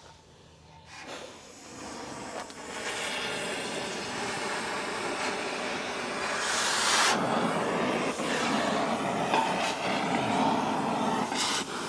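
Oxy-acetylene cutting torch cutting steel pipe: a steady, loud hiss that builds over the first couple of seconds and holds, with a louder surge of hiss around seven seconds in.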